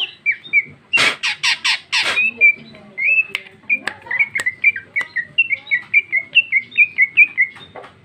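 Female cucak ijo (green leafbird) calling: about five harsh, raspy notes in quick succession about a second in, then a long run of short, quick chirps at about four a second, with one more harsh note near the end.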